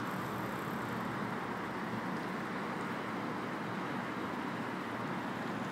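Steady rushing background noise at an even level, with no single sound standing out.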